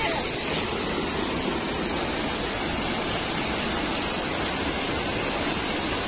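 Small waterfall, about six feet high, with water pouring steadily over a rock ledge and splashing onto the rocks of the pool below.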